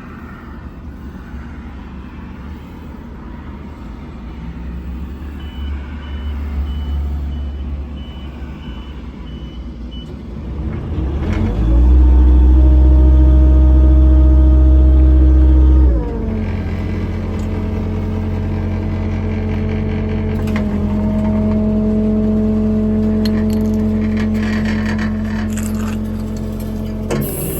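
A diesel engine of the Miller EnPak on the service truck is running steadily, with a string of short electronic beeps partway through. About eleven seconds in it speeds up and runs very loud for about four seconds, then settles to a steady pitched running sound as the hydraulics are worked.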